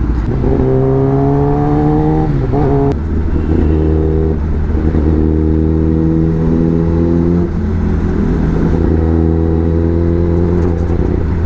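Kawasaki Ninja ZX-10R's inline-four engine pulling away from a standstill. Its pitch climbs for about two seconds, dips at a gear change, then holds fairly steady as the bike rides on at low speed.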